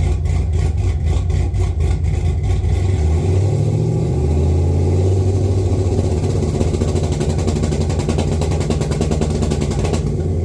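Cammed 6.0-litre LS V8 running with a choppy, pulsing beat, then revved up about three seconds in and held at higher rpm. It cuts off suddenly at the end.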